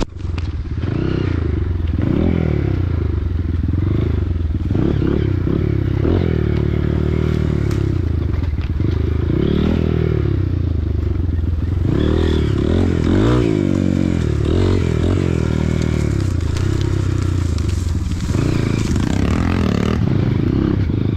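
Honda CRF single-cylinder four-stroke dirt bike engine being ridden, its revs rising and falling every second or two as the throttle is worked over rough ground.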